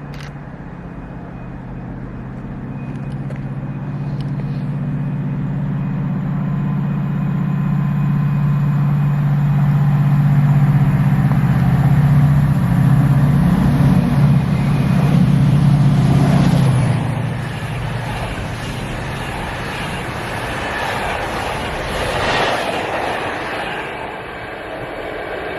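Class 68 diesel-electric locomotive's Caterpillar V16 engine working under power, a steady low drone growing louder until about two-thirds of the way through, then dropping away suddenly. The rumble of the train rolling by follows.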